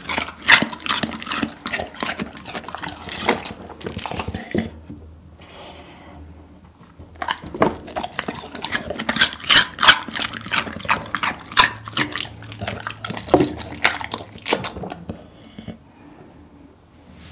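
A golden retriever crunching and chewing pieces of cucumber: rapid, wet crunches in two bouts, with a pause of a couple of seconds between them, stopping a couple of seconds before the end.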